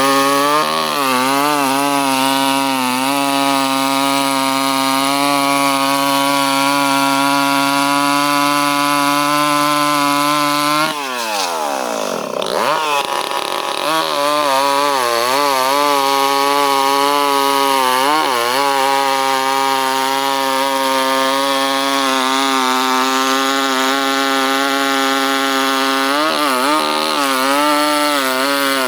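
Chainsaw engine running at high revs and cutting big logs, its pitch wavering now and then under load. About eleven seconds in, the revs drop sharply and then climb back up.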